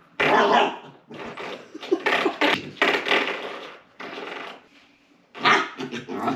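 Corgi puppy batting and biting a spring door stop on the baseboard, setting the spring twanging in about five short bursts.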